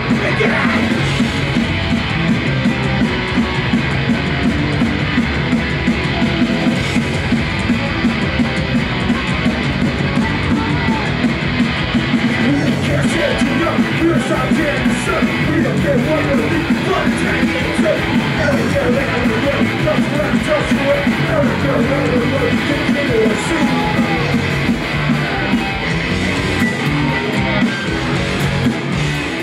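Live punk rock band playing a song at full volume: electric guitars and drums, with a voice singing through the middle of it.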